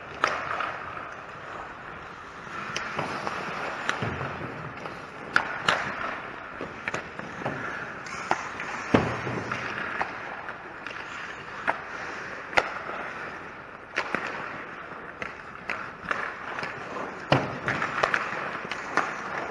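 Ice hockey play close to the net: skate blades scraping and carving the ice, with sharp clacks of sticks and puck striking the ice, pads and boards scattered throughout.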